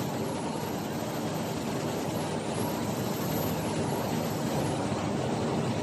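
1000 mm high-speed flexographic printing press running: a steady mechanical hum and whir with no change in speed.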